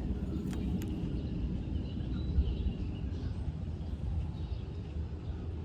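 Outdoor ambience: a steady low rumble with faint chirps of birds, and two short clicks about half a second in.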